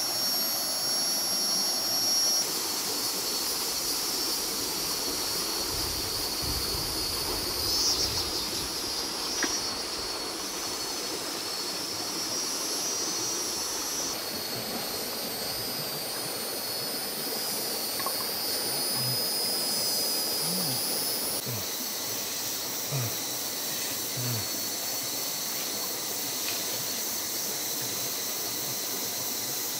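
Dense insect chorus in tropical forest: a steady, high-pitched shrill drone that changes character a few times.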